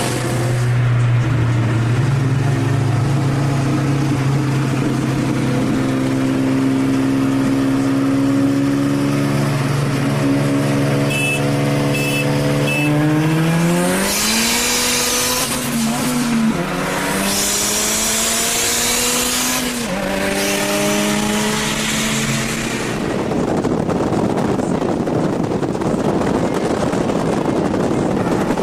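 Car engine heard from inside the cabin during a street race: a steady drone at constant revs, then about thirteen seconds in the revs climb hard under full throttle, drop at a gear change, and climb again through another shift. In the last few seconds a loud rush of wind and road noise covers the engine.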